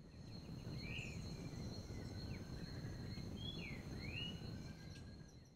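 Faint forest ambience: a few short sliding bird chirps, about a second in and again around three and a half to four seconds in, over a thin steady high tone and low rumbling background noise. It fades out near the end.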